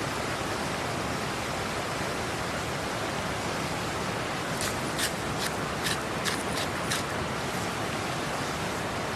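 Steady rushing of a river, with a run of short sharp clicks about halfway through.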